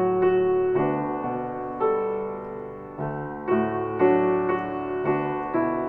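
Piano playing slow, sustained chords, a new chord struck every second or so and left to ring.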